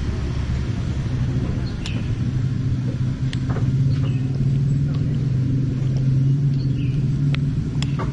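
Steady low rumble of a motor vehicle engine running, with a few light clinks of a metal spoon against the bowl.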